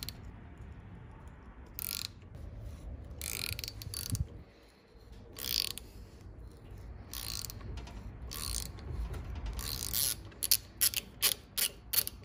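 A thread tap being turned by hand into the bolt hole of a starter motor's metal mounting flange, cutting M10 x 1.5 threads for a helicoil insert. Short scraping clicks come with each turn about every second, then a run of quick clicks near the end.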